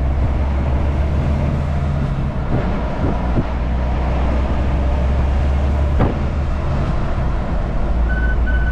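Steady low engine drone and road noise inside the cab of a moving LNG (natural-gas) truck, with no rattling: an adjustment made on the truck has cured its rattling noise. One sharp click about six seconds in, and three short high electronic beeps near the end.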